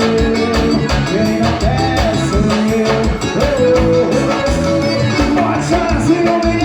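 Forró band music with a steady bass beat under sustained melody lines.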